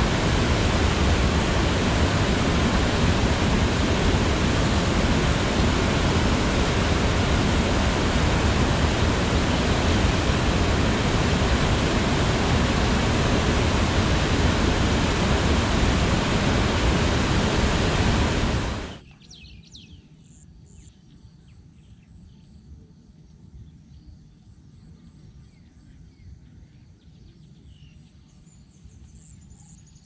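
Preah Nimith waterfall: wide river rapids rushing over rocks in a steady, loud roar of water. About two-thirds of the way through it cuts off suddenly, leaving only a faint background with a few high chirps.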